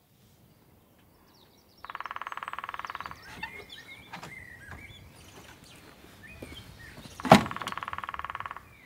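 An electric doorbell buzzer sounds twice, each a rasping buzz of about a second, with a sharp knock just before the second buzz. Birds chirp briefly between the two buzzes.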